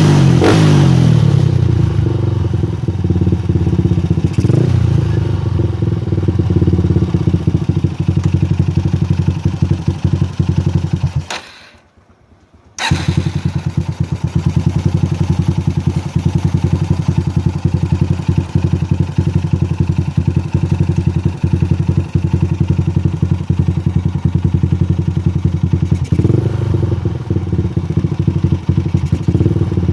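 Yamaha Scorpio's single-cylinder four-stroke engine running through an aftermarket HNR exhaust. A rev settles to an idle, then the engine stops for about a second and a half and comes straight back, idling again with a short blip of the throttle near the end.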